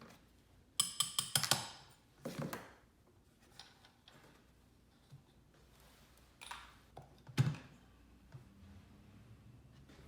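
Light metallic clicks and taps as small parts of a portable bandsaw are handled during disassembly. A quick run of clicks comes about a second in, followed by a few scattered single clicks and one louder knock later on.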